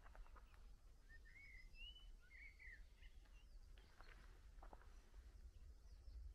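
Near silence: faint outdoor quiet with a low rumble and a few short bird chirps between about one and three seconds in.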